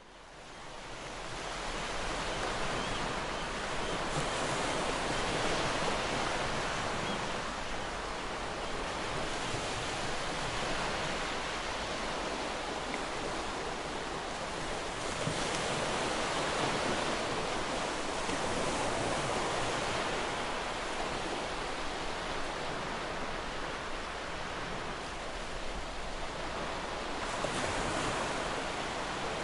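Ocean surf washing on a shore: a steady rushing noise that swells and ebbs every few seconds as waves come in. It fades in from silence at the start.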